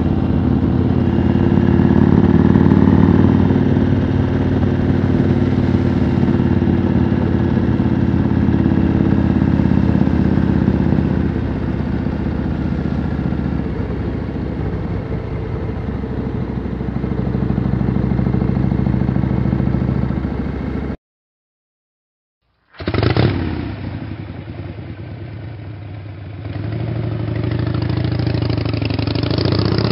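Yamaha Road Star V-twin motorcycle engine running steadily as the bike rides along. About 21 s in the sound cuts out for a couple of seconds, then a different recording of a motorcycle engine starts, with revving rising near the end.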